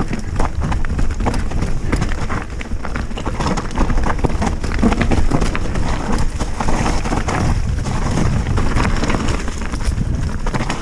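Specialized Stumpjumper mountain bike descending a rough dirt trail, its tyres rolling over dirt and stones and its frame and parts rattling, with many sharp knocks. Wind buffets the action camera's microphone, giving a heavy low rumble.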